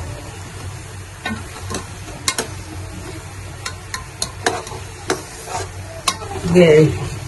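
A ladle stirring meat and spices frying in a large cooking pot, with irregular clinks and scrapes against the pot over a light sizzle. This is the stage where the meat is fried until its own liquid dries off. Near the end there is a brief, louder wavering sound.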